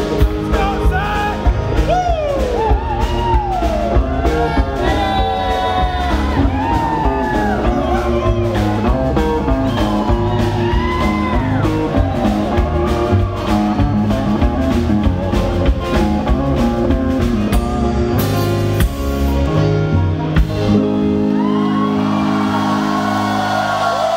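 Live band of banjo, electric guitar and drums playing an upbeat song with a sung vocal. About 20 seconds in the drums stop and the band holds a final chord, while the crowd whoops and cheers near the end.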